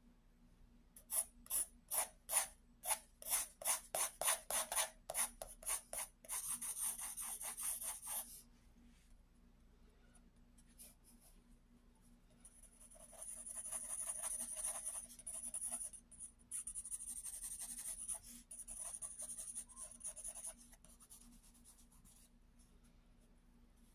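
Pencil scratching on drawing paper: quick short hatching strokes, about three a second, then a longer run of continuous shading ending about 8 seconds in. After a quiet gap, two more long stretches of shading, with a faint steady hum underneath.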